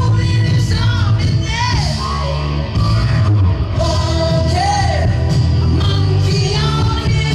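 Man singing a rock song into a handheld microphone over a karaoke backing track with a heavy, steady bass line.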